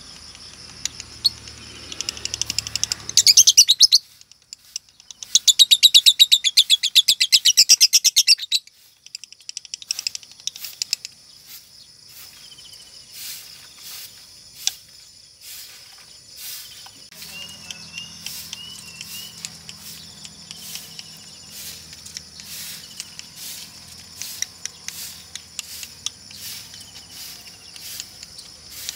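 Female Fischer's lovebird singing: two loud runs of very fast, high chattering trill, the second about three seconds long, followed by softer scattered chirps, clicks and short warbles. The keeper takes this chatter as a sign of 'konslet', the long rapid song style prized by lovebird hobbyists.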